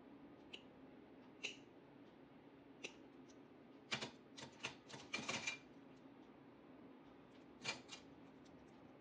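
Scattered sharp metallic clicks from steel podiatry instruments such as nail nippers being worked and handled, with a quick run of clicks about four to five and a half seconds in. A faint steady low hum lies underneath.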